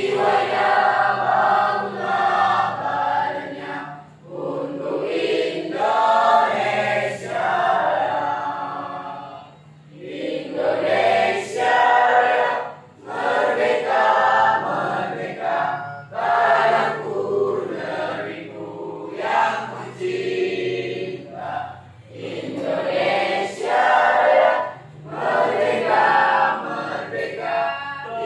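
A class of teenage students singing together in unison, in phrases with brief breaks about every six seconds.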